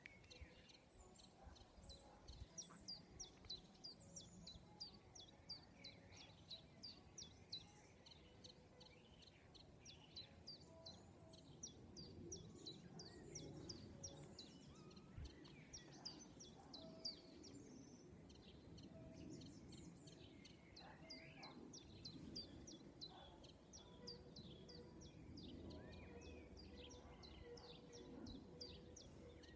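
Faint birdsong: a long run of short, high, downward-slurred chirps at about three a second, with a few other scattered bird calls over a low background hum.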